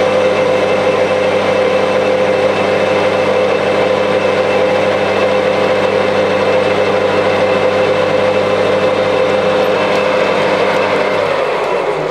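Metal lathe running with a steady hum, its chuck spinning a round bar while a carbide insert tool faces the end. The hum starts to die away near the end.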